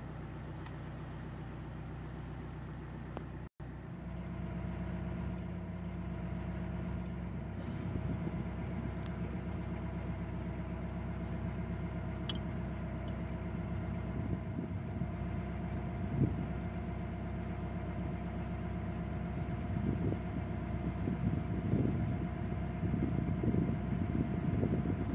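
Narrowboat's diesel engine running steadily at cruising speed, a low even hum. The sound drops out for an instant about three and a half seconds in, and wind buffets the microphone in gusts toward the end.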